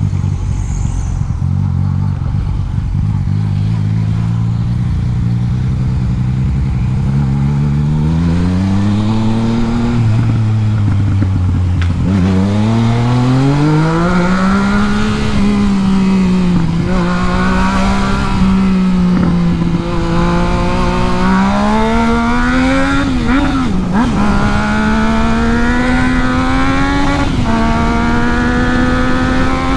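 Yamaha MT-09's inline three-cylinder engine accelerating through the gears. Its pitch rises, drops sharply at a shift about twelve seconds in, climbs again and then holds fairly steady, with a brief dip and wobble near twenty-four seconds.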